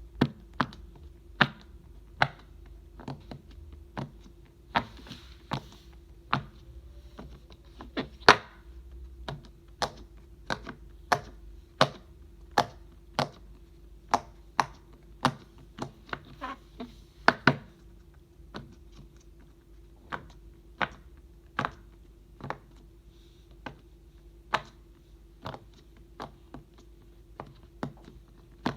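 Silicone pop-it fidget toy being pressed bubble by bubble, giving sharp pops at an uneven pace of about one or two a second, over a faint steady hum.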